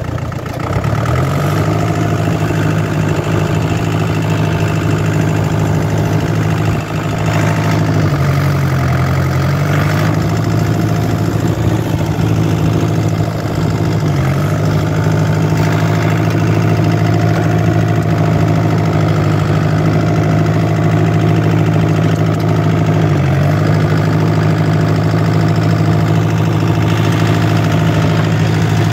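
Kubota L3250's four-cylinder diesel engine running steadily. Its speed rises about a second in and then dips briefly three times.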